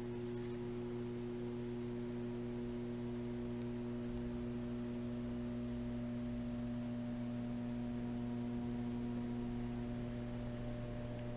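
Steady electrical mains hum: a low buzzing drone with a ladder of higher overtones above it.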